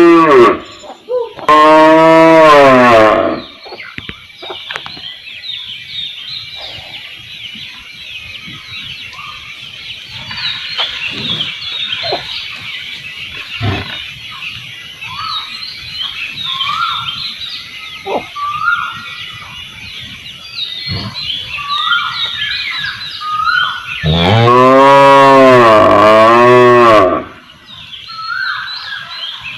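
Cow mooing in long, loud, deep calls. One moo ends just as the clip begins and another follows right after. A third, rising then falling in pitch, comes near the end.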